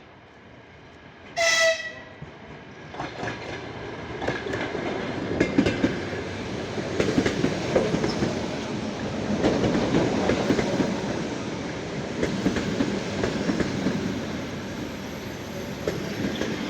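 EP2D electric multiple unit giving one short, high-pitched blast on its horn, then running up close with a growing rumble and wheels clicking over the rail joints.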